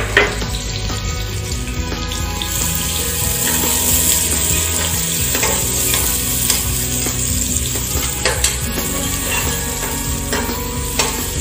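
Sliced onions sizzling in hot ghee in an aluminium pressure cooker, stirred with a ladle that gives a few sharp clinks and scrapes against the pot, the loudest right at the start.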